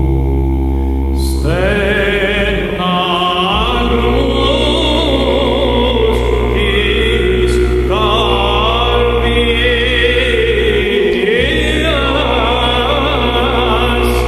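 Byzantine chant: a cantor sings an ornamented, melismatic melody over a held, very deep basso profondo drone (ison). The melody starts moving about a second and a half in, and the drone drops out briefly twice, about three seconds in and about eleven seconds in.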